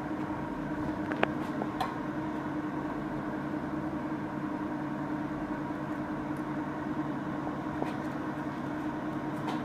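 Steady electrical hum of a Grovers argon-arc (TIG) welding machine switched on and idling, with a couple of faint clicks about one and two seconds in.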